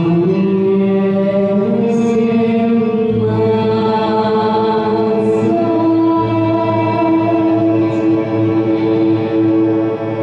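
Music: a slow song with long held sung notes over instrumental accompaniment, the melody stepping up in the first few seconds and then holding.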